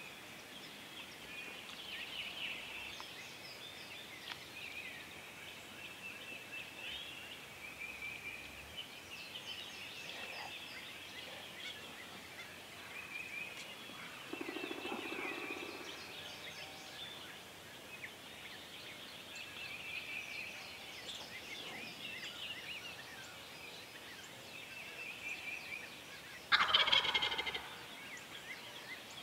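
A wild turkey gobbler gobbles once, loud and rattling, about two seconds before the end, over steady chirping of small birds.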